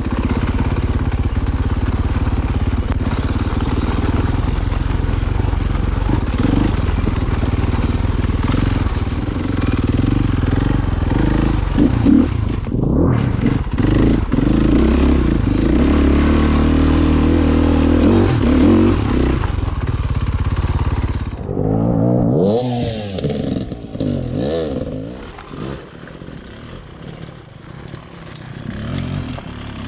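Dirt bike engine running hard and steady under load on a trail. About two-thirds of the way through it drops off and gives a few quick revs that rise and fall, then runs quieter and picks up again near the end.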